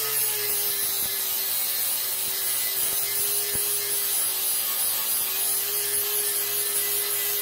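Electric grinder running steadily under heavy pressure, its disc grinding metal off a steel bolt-cutter handle to flatten it into a mounting surface: a steady motor whine over a dense grinding hiss.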